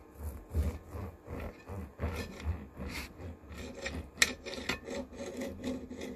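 Table knife sawing back and forth through a grilled steak, the blade rasping on the plate beneath in repeated strokes, with a single sharp click about four seconds in.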